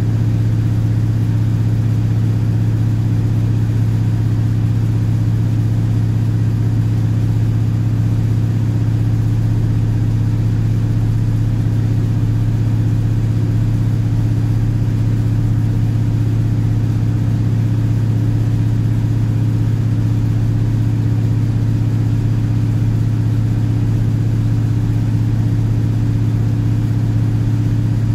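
Class 155 Sprinter diesel multiple unit at speed, heard from inside the passenger saloon: a steady, deep drone from its underfloor Cummins diesel engine and running gear, with no change in pitch.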